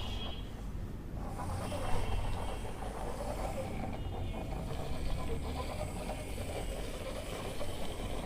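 Toy bus being run along a surface, its plastic wheels making a steady raspy whirring, with a few brief high whines.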